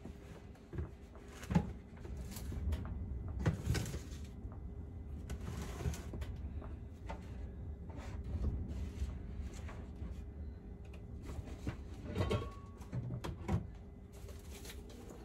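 Rummaging through kitchen cupboards and drawers in search of a utensil: scattered knocks, clicks and rustling, with a few sharper knocks spread through it.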